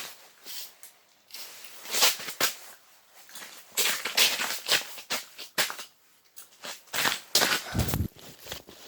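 Irregular crunching and rustling: a string of short scrapes and clicks at uneven intervals, busier near the end.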